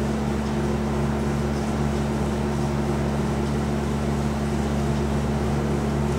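A steady low hum of several constant tones over an even haze of background noise, unchanging throughout.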